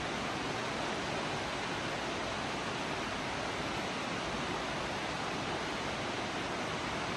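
Waterfall rushing: a steady, even roar of falling water with no changes.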